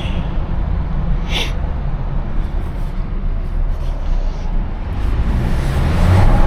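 Twin-charged Mercedes engine and road noise heard from the car, a steady low rumble with a short hiss about a second and a half in, growing louder near the end as the car accelerates.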